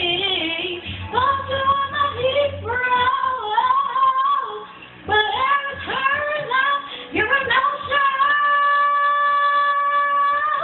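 A girl singing, her voice sliding up and down in quick runs, then holding one long steady note through the last couple of seconds.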